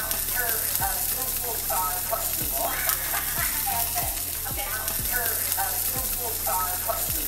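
Salmon fillet sizzling as it fries in oil in a pan, a steady crackling hiss. Over it run repeated low thumps and short pitched notes, like background music.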